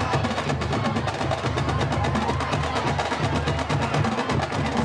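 High school marching band playing live, a percussion-heavy passage: rapid, even drum strokes over a repeating low bass line.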